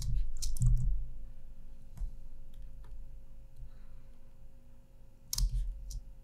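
Clicks from drawing at a computer, some with dull knocks: a cluster in the first second, a single click about two seconds in, and another cluster about five and a half seconds in.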